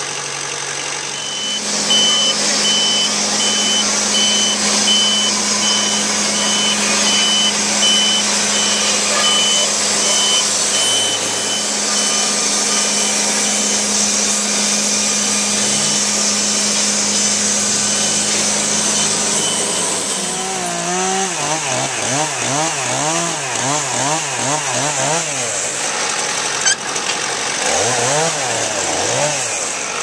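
Wood-Mizer portable band sawmill running steadily under load as its band blade cuts through a pine log, with a high hiss of sawing. About twenty seconds in the cut ends and the engine note wavers up and down for the rest.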